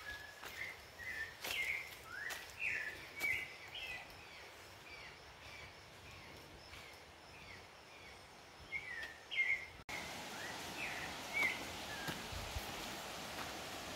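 A bird repeats short chirps, one or two a second, over the steady hiss of forest ambience. About ten seconds in, the sound changes abruptly to a louder, steady hiss with only a few chirps.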